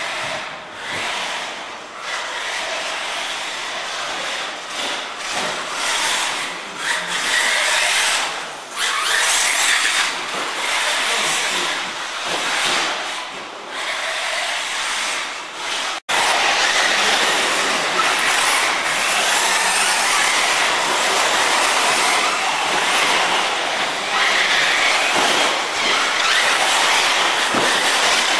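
Bergonzoni R1 electric brushless 1/8-scale buggy running on a loose dirt track: a rattling hiss of drivetrain and tyres that rises and falls as it speeds up and slows. After an abrupt cut about halfway through, the noise is louder and steadier.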